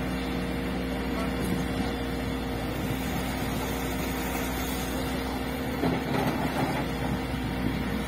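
Diesel engine of a Cat hydraulic excavator running steadily under digging load, with a short burst of louder clatter about six seconds in.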